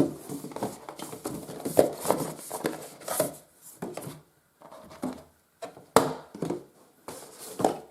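Hands opening a cardboard product box and handling the packaging inside: scattered rustles, scrapes and knocks, with a sharp click about six seconds in.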